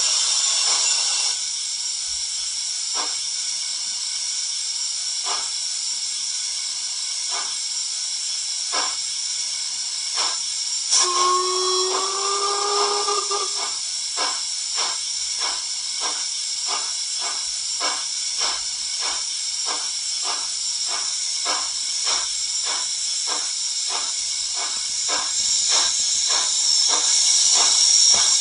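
Steam locomotive sound from a YouChoos sound decoder in a Hornby Royal Scot model, played through the model's speaker: a steady hiss of steam with a whistle blast about 11 seconds in, and chuffs that begin slowly and quicken steadily to about two a second as the locomotive gets under way.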